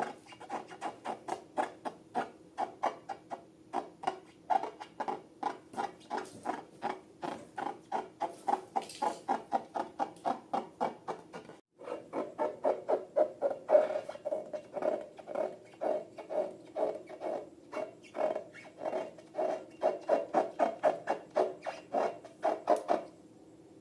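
Slime being squished and poked by hand: short sticky squelches and clicks about three a second, with a brief break about twelve seconds in.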